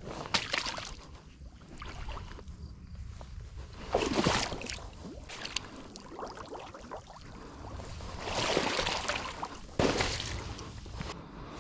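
Footsteps of a person in waders moving through streamside grass and shallow water, a few swishing, splashing steps with brushing of grass and rubber waders.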